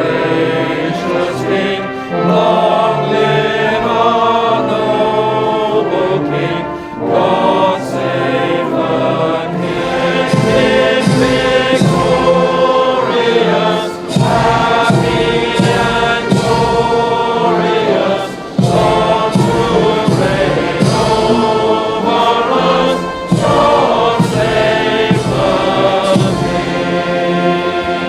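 A choir singing, many voices together, running on throughout.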